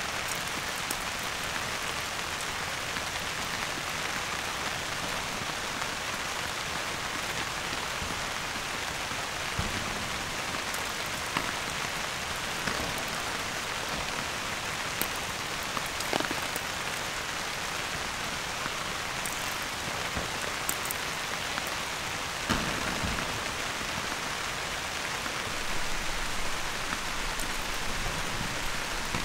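Steady rain falling, a constant hiss, with now and then a single louder drop tapping close by.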